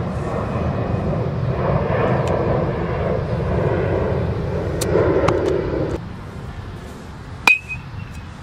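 A metal baseball bat hits a ball once, about seven and a half seconds in: a sharp ping with a short ring. It sounds over a steady outdoor rumble that gets quieter about six seconds in.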